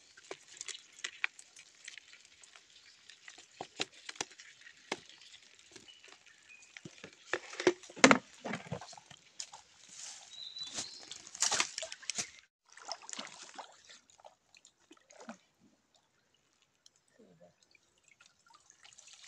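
Water splashing and sloshing in a plastic bucket as live fish and eels are shaken out of a mesh trap, with dripping and small knocks; the loudest splash comes about eight seconds in, and the splashing grows sparser and quieter near the end.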